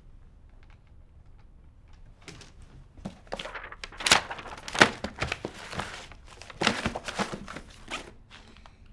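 Someone rummaging on a floor among crumpled paper: a run of rustling, crinkling and knocks. It starts about two seconds in, is busiest through the middle with a few louder knocks, and dies away near the end.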